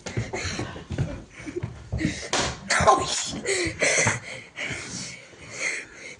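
Scattered short knocks and slaps, with brief snatches of voices among them.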